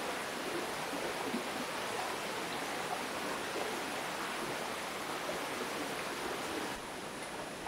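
Shallow mountain stream rushing steadily over rocks, a constant even wash of water; it drops a little in level near the end.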